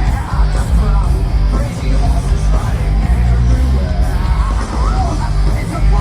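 Loud rock-style show music with heavy bass and a voice singing over it.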